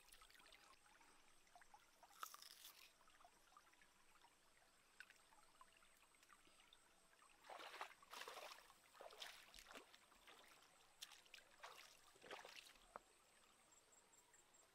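Faint trickling of a shallow rocky stream, with a few soft splashes of water, most of them bunched in the second half.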